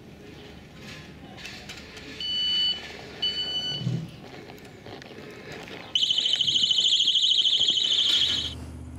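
Motorcycle security alarm beeping: two short high beeps a second apart, then a loud, rapidly pulsing alarm tone lasting about two and a half seconds.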